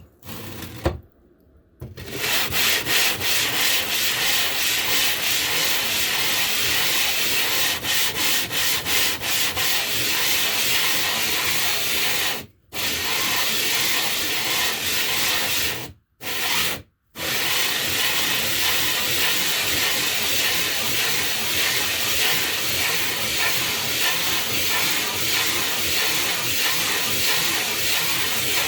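A piece of limestone being rubbed back and forth against an abrasive surface to grind it into a sharpening stone: a continuous gritty scraping of rapid strokes, stopping briefly three times. A single knock comes about a second in, just before the rubbing starts.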